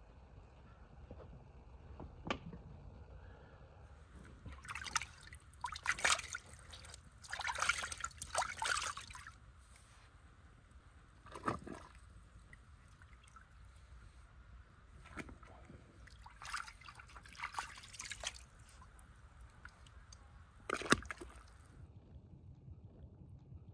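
Hot water sloshing and pouring in irregular splashing bursts at a large steaming aluminium stockpot, with a few sharp metal knocks in between.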